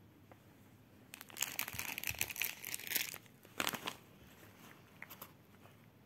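A clear plastic bag of plush cat toys crinkling: a long stretch of crackling rustle from about one to three seconds in, then a shorter burst just before four seconds.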